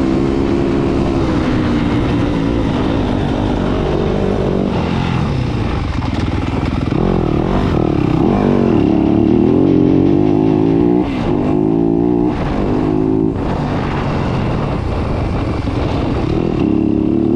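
2021 Yamaha YZ250F's 250 cc four-stroke single-cylinder engine revving hard while the dirt bike is ridden along a trail, its pitch climbing and falling again and again with throttle and gear changes. The engine note drops off briefly a couple of times past the middle.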